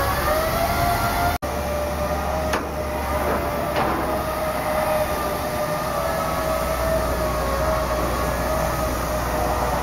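A machine's steady whine with a slowly wavering pitch, over a low background hum. It breaks off for an instant about a second and a half in.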